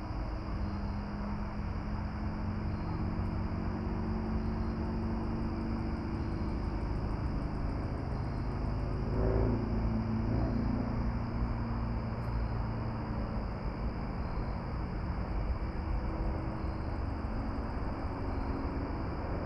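Steady rushing noise under a low, even drone with a few held pitches, typical of a running engine, swelling briefly about halfway through.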